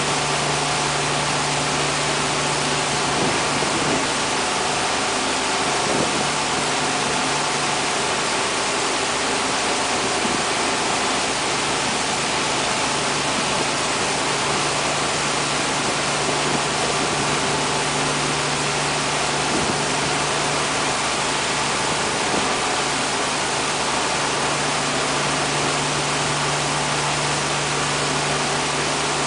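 Boat's engine running steadily under way, a constant low drone, with the rushing hiss of the wake churning behind the stern.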